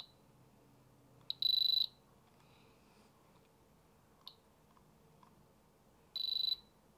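Handheld electronic diamond tester beeping as its probe is pressed onto a cubic zirconia-set watch. There is a quick blip and a half-second high beep about a second and a half in, then another half-second beep near the end. The stones do not test as diamond.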